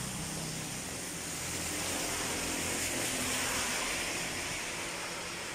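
Steady hiss of rain falling, swelling a little in the middle of the stretch.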